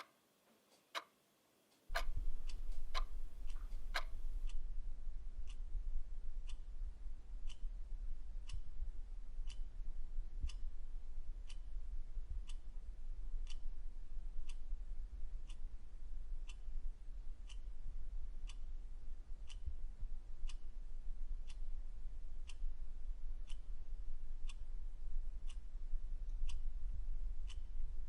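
Clock ticking steadily, a little faster than once a second. About two seconds in, a steady low hum starts underneath and carries on.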